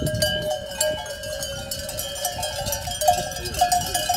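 Bells worn by a flock of sheep, clanking and ringing irregularly as the animals move about.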